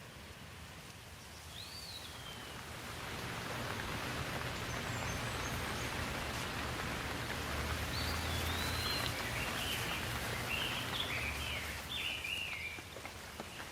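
Rain falling steadily, the downpour swelling louder through the middle and easing off near the end, with a bird chirping a few short calls early on and a run of chirps in the second half.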